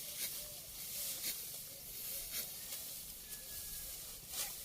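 A few brief crisp rustles of dry rice stalks being handled or cut in a paddy field, over a steady hiss.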